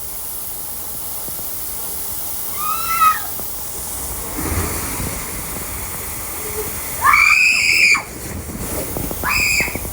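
Water park ambience: a steady rush of splashing water with several shrill screams that rise and fall in pitch, the longest and loudest about seven seconds in.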